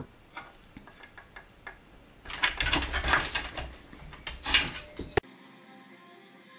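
A cat's claws scratching and scrabbling on a wooden chair as it climbs. A few light taps are followed by about two seconds of loud scratching and one more short burst. The sound then cuts off abruptly to a faint steady hum.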